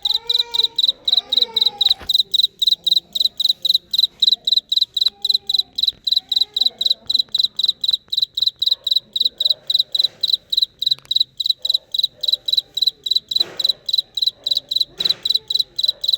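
A cricket chirping in even, regular pulses on one high note, about four a second. Two brief knocks come near the end.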